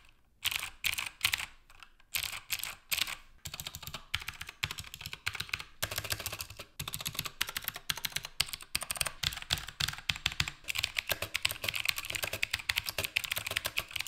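Keychron K2 mechanical keyboard with clicky blue switches being typed on: a few separate keystrokes at first, then fast continuous typing from about three seconds in. Very clicky and clacky.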